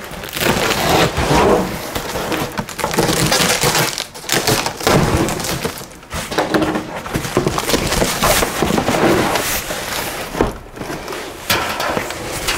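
Cardboard box and plastic packaging being handled and pulled apart: steady rustling and crinkling broken by many short knocks and cracks.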